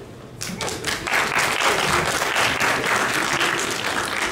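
Audience applauding, a dense patter of clapping hands that starts about half a second in and holds steady.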